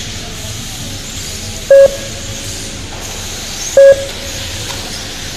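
Two short, loud electronic beeps about two seconds apart, each a single steady tone, from an RC race lap-timing system registering cars crossing the line, over a steady hiss.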